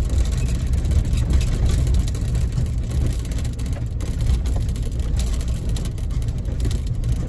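Toyota Tundra pickup driving slowly over a rough, rocky dirt road, heard from inside the cab: a steady low rumble of engine and tyres with small scattered knocks and rattles as the truck jolts over the rock.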